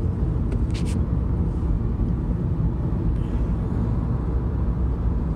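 Car driving along, heard from inside the cabin: a steady low rumble of road and engine noise, with a couple of brief faint ticks just under a second in.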